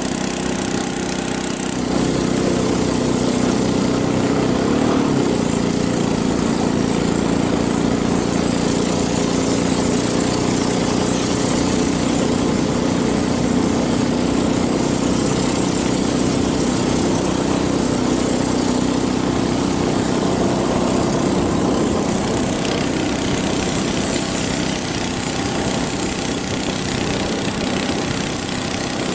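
Small outboard boat engine running steadily with the boat under way, a little louder from about two seconds in.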